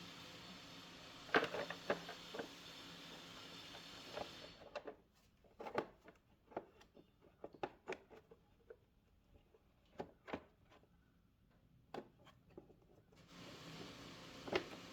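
Faint clicks and knocks of engine parts being handled and fitted: the air filter, its clamp and the plastic filter cover going back onto a Kawasaki FS600V engine. The clicks come in a cluster early on, then scattered ones through the middle, over a faint hiss that drops out after about four seconds and returns near the end.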